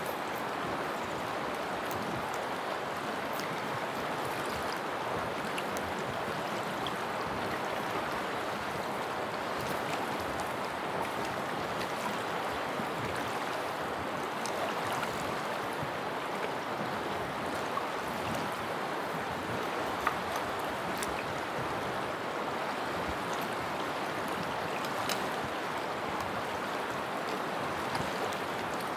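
Flowing water of a mountain river rushing steadily, with a faint click about twenty seconds in.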